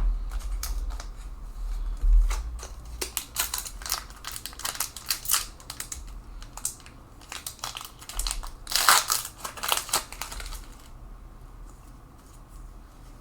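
Trading cards being handled and sorted by hand: a run of quick light clicks and flicks of card stock, thickest about nine seconds in, then dying down for the last couple of seconds.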